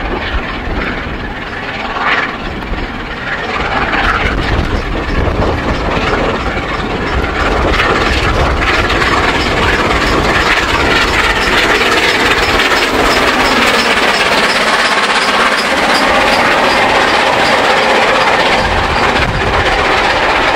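Peppercorn A1 Pacific steam locomotive 60163 Tornado, a three-cylinder engine, working hard with a rapid chuffing exhaust as it hauls its train up the grade. It grows louder as it approaches and passes, and its coaches roll by near the end, with wind buffeting the microphone.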